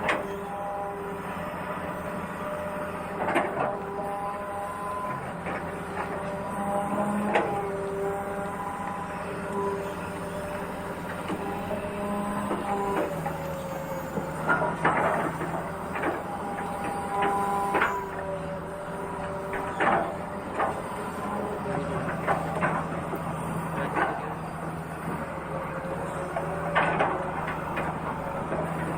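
Small electric motors of radio-controlled construction models running with a steady whine that steps up and down in pitch as the load changes. Short knocks and clatters come every few seconds, typical of soil and sand being dug and dropped.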